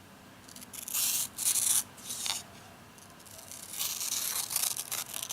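Freshly sharpened Victorinox Pioneer pocket-knife blade slicing through paper in three strokes: a long cut about a second in, a short one near the middle, and another long cut near the end.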